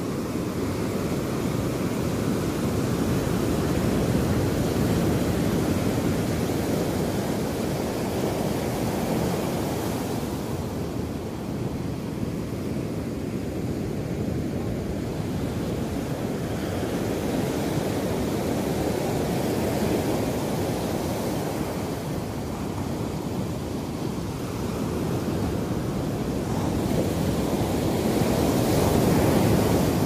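Ocean surf: small waves breaking and washing over the shallows of a sandy beach, a steady rush that swells and eases every several seconds, loudest near the end.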